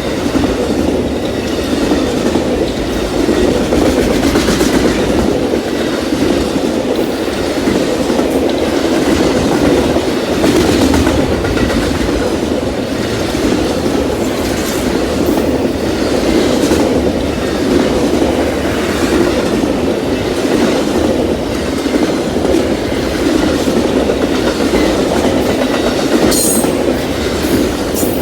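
A train's cars rolling past in a steady rumble, with wheels clicking over the rail joints.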